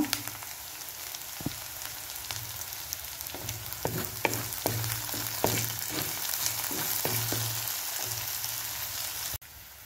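Chopped onion, green chillies and fresh curry leaves sizzling in hot oil in a clay pot, stirred with a wooden spatula, with a string of sharp crackles and knocks in the middle stretch. The sizzle cuts off suddenly near the end.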